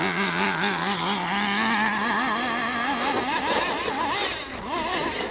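Radio-controlled off-road truck's motor revving as it is driven, its pitch rising and falling over and over with the throttle.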